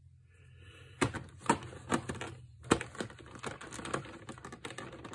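Hard plastic game pieces clicking and knocking against a plastic box tray as they are handled: a run of irregular sharp clicks, with a louder knock near the end.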